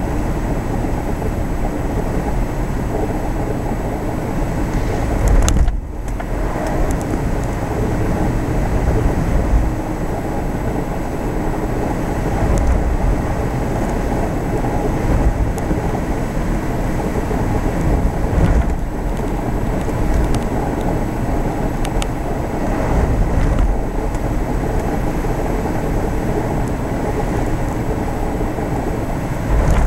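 Four-wheel-drive vehicle driving along a firm sand beach: a steady engine and tyre rumble heard from inside the cabin, with a brief drop in sound about six seconds in.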